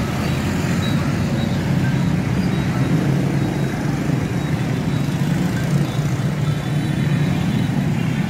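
Steady hum of night-time city street traffic, motorbikes and cars running past continuously without any single vehicle standing out.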